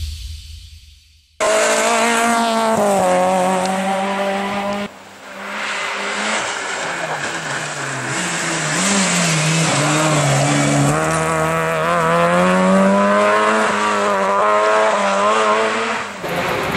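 Rally car engines running hard in a few short, abruptly cut clips, the engine note dropping and climbing again as the cars shift and change speed.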